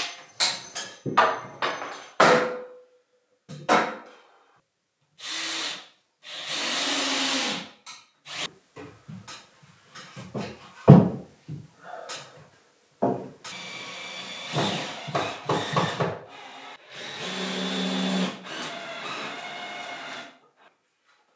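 Power drill running in several short runs of a second or more, with sharp knocks of wood in between.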